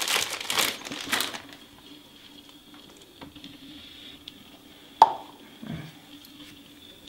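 Handling of a plastic bottle of eye makeup remover and a cotton pad: a burst of rustling at the start, small knocks, and one sharp click about five seconds in, over a faint steady hum.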